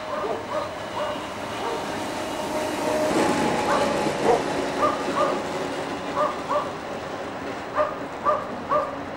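A dog barking repeatedly, the barks coming in twos and threes, over steady background noise.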